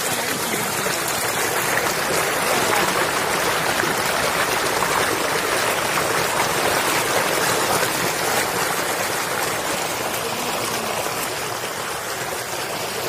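Stream water rushing and splashing steadily as it pours over stones into a woven fish trap (panai pari).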